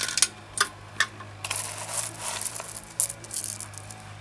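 Pebbles clinking one at a time into an empty metal motorcycle fuel tank, with a few sharp clicks and a softer rattle of stones between them. The stones are loaded in so they can scour dirt and rust from inside the tank.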